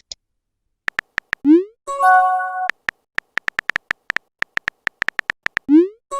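Phone messaging sound effects: runs of quick keyboard taps, a short rising pop of a message being sent, then a chime of several held tones that fades, about two seconds in. After a longer run of taps, another sent-message pop comes near the end.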